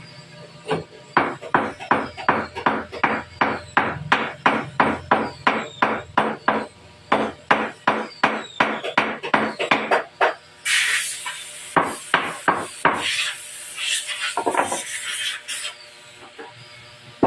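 Steel hammer striking a wooden table frame in a steady series of sharp knocks, about three a second, as a joint is hammered together. After about ten seconds the strokes stop, and a few scattered knocks and stretches of scraping noise follow.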